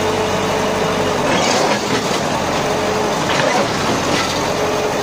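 Crawler bulldozer's diesel engine running steadily under the hubbub of a large crowd, with voices calling out over it a few times.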